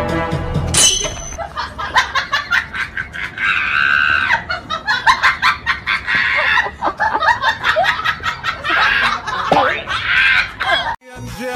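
High-pitched laughing and squealing voice sounds over many short clicks. Music cuts off about a second in.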